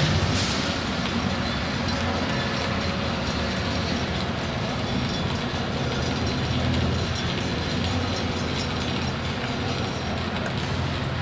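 Soundscape track: a steady, dense rumble over a low hum, a little louder in the first moment and then even.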